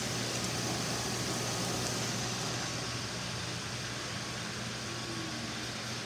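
Several robot vacuum cleaners running at once: a steady whir of their suction fans and brushes over a constant low hum.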